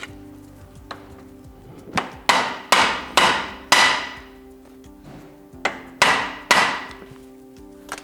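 Snap-on map rail trim being tapped over into position to correct its alignment: about five sharp ringing knocks in quick succession, a short pause, then three more.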